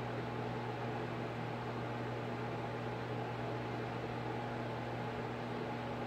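Steady machine hum with a hiss underneath and a constant low tone, unchanging throughout.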